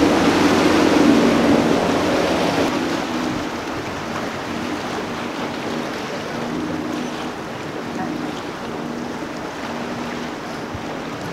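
Twin outboard motors of a center-console boat running at speed with a steady drone, over the hiss of hull spray and wake. The sound fades after about three seconds in as the boat pulls away.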